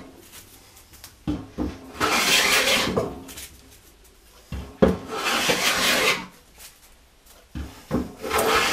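Juuma No. 6 cast-iron bench plane cutting along the edge of a mahogany board: three long hissing strokes about three seconds apart, with short knocks in between as the plane is set back down for the next pass. The blade is unhoned, straight from the factory, and takes full-length, almost see-through shavings.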